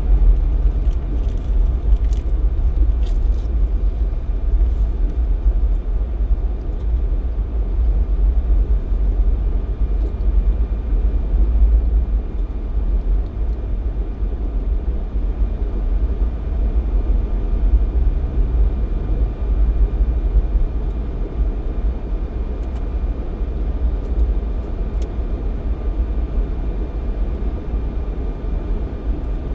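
Steady low rumble of a Jeep XJ driving along the highway: engine and tyre noise running continuously.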